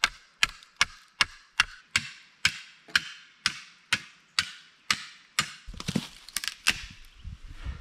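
A rock tapping a knife's spine down through a green sapling to split it, a sharp crack about two and a half times a second. Near the end the taps give way to a quicker, irregular cluster of cracks and knocks as the wood splits.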